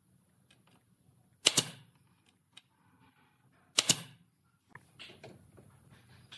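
Pneumatic nail gun firing twice, about two seconds apart, driving nails into a pine trim board; each shot is a sharp crack with a quick second snap. Softer clicks of the tool being handled follow.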